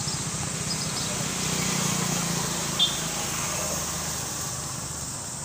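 An engine running steadily, a low hum with a fast even pulse, with a few short high chirps over it near the start and about three seconds in.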